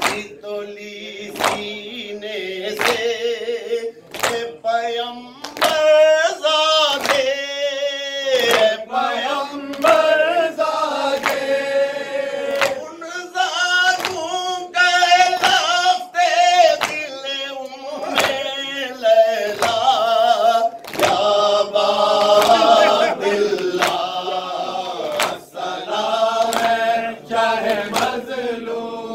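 A group of men chanting an Urdu mourning noha in unison, led by one voice, while beating their chests in matam: a sharp slap of palms on chests about every one and a half seconds keeps time under the singing.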